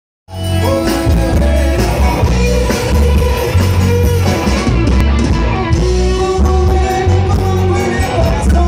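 A band playing live, with electric guitars, keyboard, drums and bass and a singer's voice over them; the music cuts in suddenly a fraction of a second in and goes on loudly.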